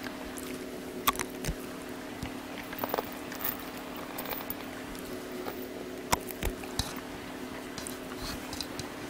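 A Jindo dog chewing and biting pieces of boiled pork, with scattered short, sharp clicks of its jaws. A steady low hum runs underneath.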